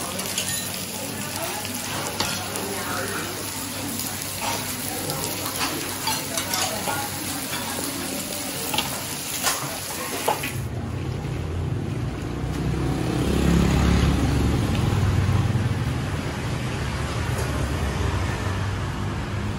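Bánh xèo batter sizzling as it fries in small black pans over gas burners, with occasional sharp clinks of metal utensils. About halfway through the hiss drops away and a low rumble takes over.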